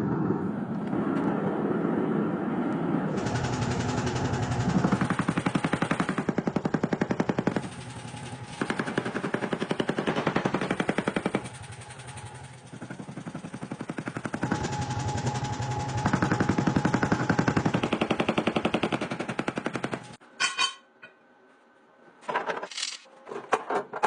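Power hammer forging steel: runs of fast, evenly spaced blows that stop and start several times, then a few separate knocks near the end.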